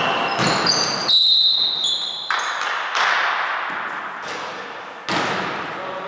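Basketball game sounds on a wooden indoor court: sneakers squeaking in short high-pitched squeals, the longest lasting about a second, and the ball bouncing in several separate thuds.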